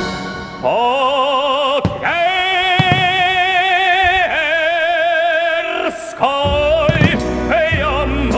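Show music with an operatic voice singing long held notes in wide vibrato, phrase after phrase with short breaks between them.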